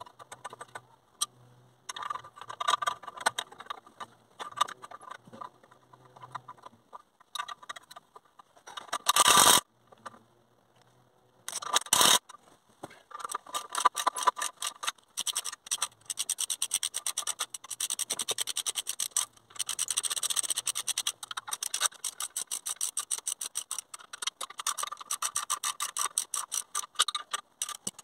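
Hand socket ratchet clicking in quick runs while turning the exhaust manifold bolts on a Rover V8 engine. Two short, louder rushing noises come about nine and twelve seconds in.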